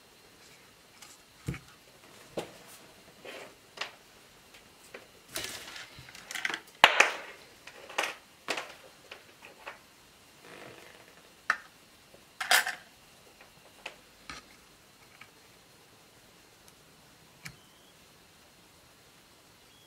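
Scattered clicks, taps and short scrapes of small plastic and metal laptop parts being handled and worked on, with a busier run of scraping about a third of the way in.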